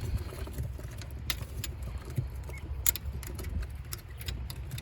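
Footsteps and handling noise from someone walking with the camera: a few irregular sharp clicks and knocks over a steady low rumble.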